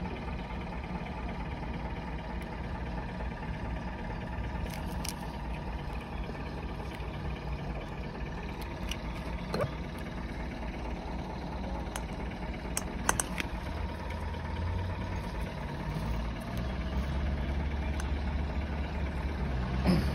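A steady low drone, growing louder about two-thirds of the way through, with a few light metallic clicks as the Yanmar SD20 saildrive's seal housing is worked onto the shaft and into the drive leg.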